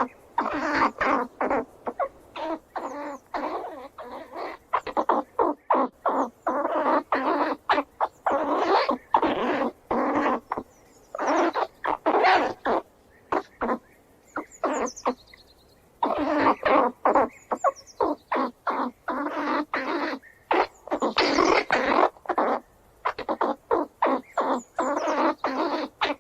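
Squirrels squealing and chattering in rapid runs of short, harsh calls, with a pause of about two seconds around the middle.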